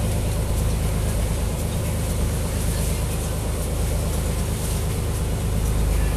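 Boat engine running steadily under way, a low hum of several steady pitches, with water rushing and splashing along the hull.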